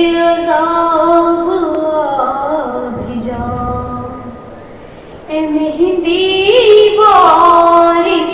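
A woman's solo voice singing an Urdu devotional lament with long held, wavering notes; she breaks off about three seconds in and takes up the melody again about two seconds later.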